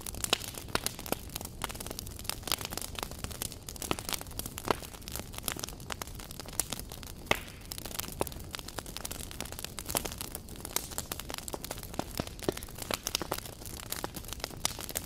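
Wood fire on a bed of embers crackling and popping, with many irregular snaps and one louder pop about seven seconds in.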